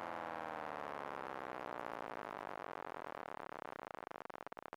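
Synthesized ACA Hurricane MKII civil-defence siren winding down at the end of its alert signal, its pitch falling steadily. Near the end the tone breaks up into choppy pulses as it dies away.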